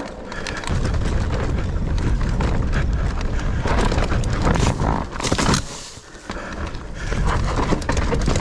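Nukeproof Mega 290 enduro mountain bike descending a dirt forest trail: a heavy rumble of wind and tyre noise on the action camera's microphone, with clattering knocks from the bike over roots and bumps about halfway through.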